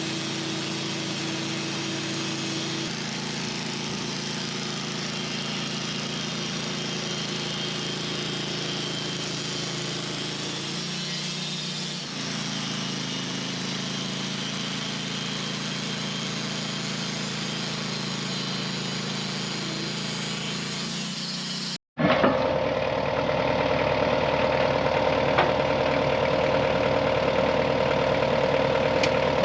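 Wood-Mizer portable bandsaw sawmill running steadily while sawing slabs from a honey locust log. About three quarters of the way through there is a sudden break, and then the mill is heard louder, with a strong steady hum.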